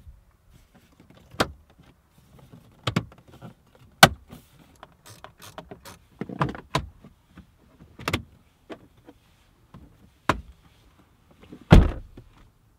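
Plastic dashboard trim around the instrument cluster being pressed and snapped back into place: a series of irregular sharp clicks and knocks, the loudest about four seconds in and near the end.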